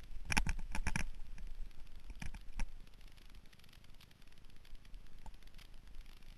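Mountain bike and its handlebar-mounted camera rattling as they jolt over a bumpy dirt trail: a quick run of sharp clatters in the first second, a few more about two seconds in, over a low rumble of wind and rolling tyres.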